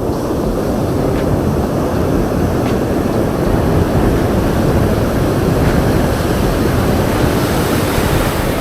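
Ocean surf washing steadily on the shore, a loud continuous rushing that swells slightly midway, with a low rumble underneath.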